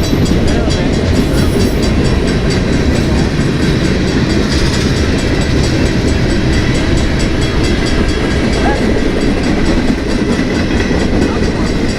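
Freight train cars rolling past at close range, the steel wheels clicking regularly over the rails against a loud, steady rumble.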